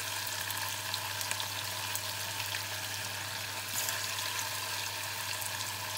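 Tofu cubes shallow-frying in a little oil in a small saucepan: a steady sizzle with fine crackling.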